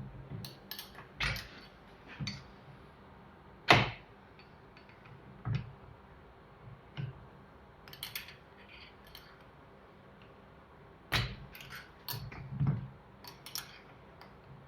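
A small metal hand tool picking at the internal circlip inside a Yamaha TZR 250 rear shock body: irregular sharp metallic clicks and short scrapes as the clip is worked loose, the loudest click about four seconds in.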